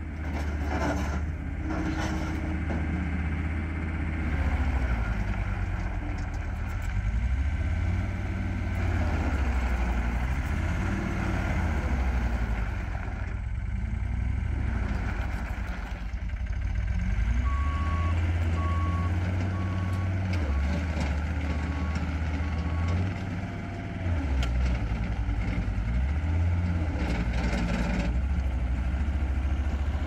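Turbo diesel engine of a 2006 John Deere CT332 tracked skid steer loader running hard, its pitch rising and falling over and over as the machine drives and works its bucket. About midway, a reversing alarm beeps about six times, growing fainter.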